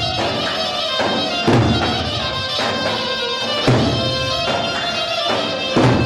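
Turkish folk dance music: a davul bass drum struck in heavy booms about every two seconds, with lighter strokes between, under a sustained reed-pipe melody.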